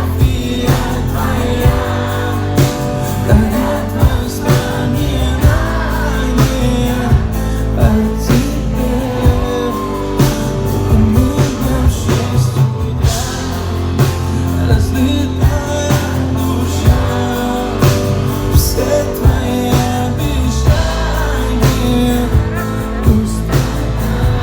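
Live pop music with a steady beat and singing voices.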